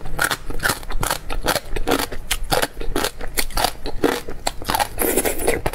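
Slurping and chewing of long strands of gong cai, dried celtuce stem, drawn into the mouth: a rapid, irregular run of short clicks and crackles.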